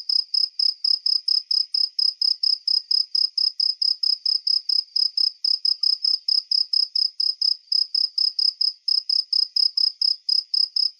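A cricket chirping steadily on one high, shrill note, about five evenly spaced chirps a second.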